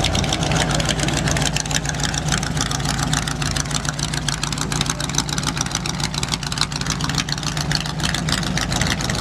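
Hot rod sedan's engine running with long side-exit headers as the car drives slowly past, a steady low drone with rapid exhaust pulses.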